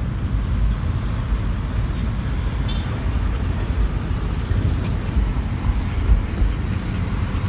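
A car driving along a street, heard from inside with a side window open: a steady low rumble of road and wind noise.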